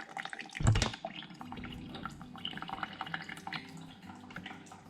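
Mr. Coffee single-serve iced coffee maker brewing, coffee dripping into the cup as a steady patter of small drips. A thump about half a second in is the loudest sound.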